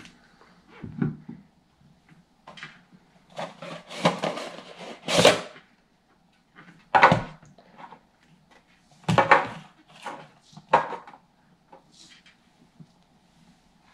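Handling noise from unboxing: cardboard boxes and a small plastic indoor security camera being picked up, turned over and set down on a table. It comes as five or six separate bursts of rustling and knocking, the longest lasting about two seconds.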